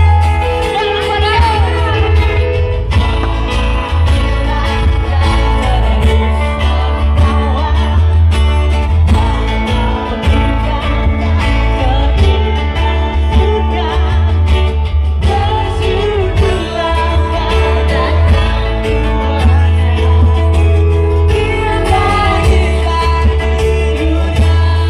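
Music with a singing voice over plucked-string instruments and a strong, steady bass.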